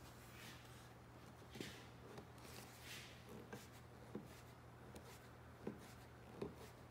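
Faint rustling of a plastic steam bag and several soft knocks as a bar clamp is screwed down on a block, pressing steamed oak inside the bag, over a steady low hum.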